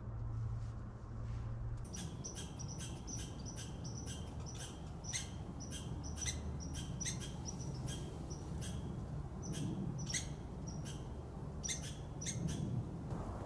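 Short, high-pitched chirps repeated a few times a second at uneven spacing, starting about two seconds in, over a steady low rumble.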